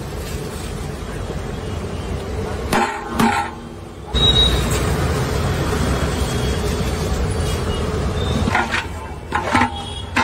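A steel paddle clinking against a large metal cooking pot a few times, around three seconds in and again near the end, over a steady low rumble.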